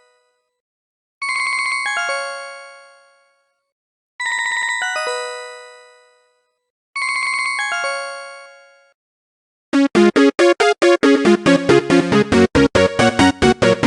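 Siemens C65 mobile phone ringtones: a short chime-like phrase of quickly falling notes, played three times with a gap between, each dying away. About ten seconds in a different ringtone starts, a fast, busy melody with several notes at once.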